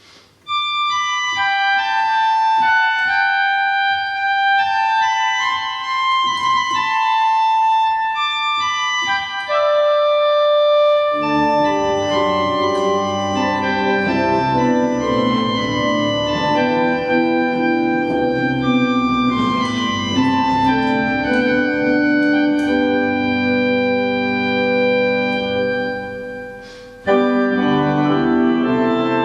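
Organ playing a slow hymn tune in steady held notes: a lone upper line at first, joined by fuller chords and bass about eleven seconds in, with a short break near the end before the next phrase.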